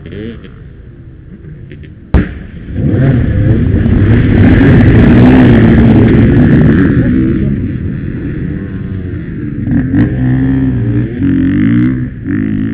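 Many enduro dirt bike engines revving together as a group of riders pulls away at a race start, loud for a few seconds, then nearby bikes running and revving up and down in pitch. A sharp knock comes about two seconds in.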